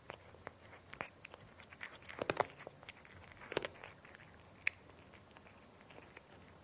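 Cat chewing dry kibble: irregular sharp crunches and clicks, with the loudest crunches about two and three and a half seconds in.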